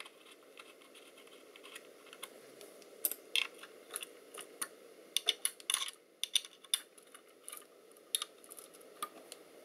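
Irregular small clicks and taps from hand tools and small metal parts being handled on a workbench, starting about three seconds in, over a faint steady hum.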